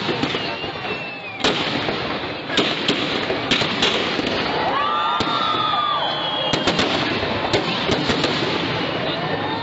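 Aerial fireworks shells bursting in a display: a series of sharp bangs, irregularly spaced, with a quick cluster of them near the end, over a continuous crackle and rumble.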